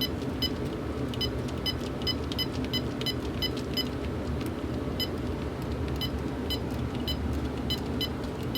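Short keypad beeps from a Sony SPP-N1000 900 MHz cordless phone as its buttons are pressed one after another, about two a second, each beep showing a key press registering after the contact repair. A steady low hum runs underneath.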